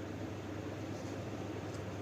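Steady low hum and hiss of background noise, with a faint tick near the end.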